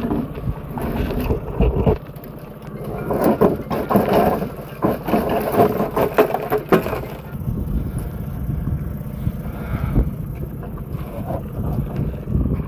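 Vinyl-coated wire crab pot rattling and clanking as it is handled and shaken to get blue crabs out, a run of irregular knocks, over a steady low rumble.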